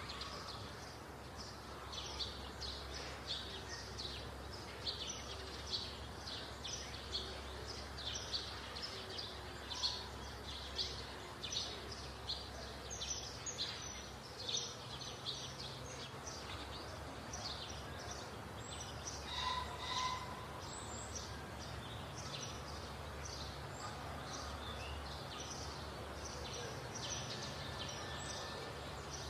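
Birds chirping repeatedly over a steady low rumble of outdoor background noise.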